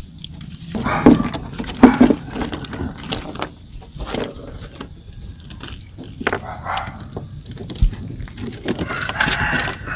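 Baby monkeys' short calls mixed with clicks, taps and knocks. There are two loud bursts a little after one and two seconds in, and a longer pitched call near the end.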